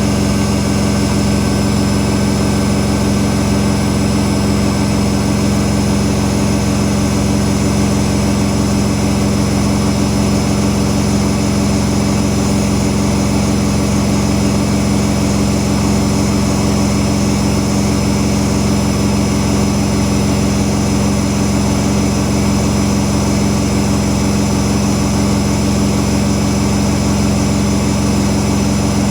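Whirlpool Indiana 1400 front-loading washing machine in its final spin at full speed, 1400 rpm: a loud, steady hum with a high whine over it that holds unchanged.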